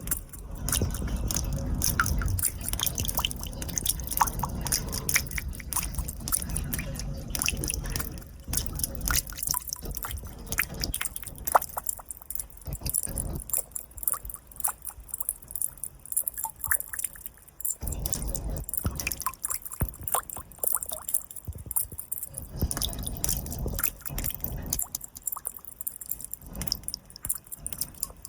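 Water dripping in a sewer: many irregular drops falling into water, over a low rumbling background.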